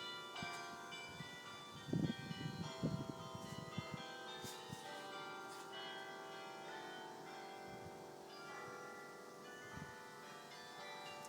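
Tower bells chiming, several bells struck one after another with their tones ringing on and overlapping. A few dull low thumps come about two and three seconds in.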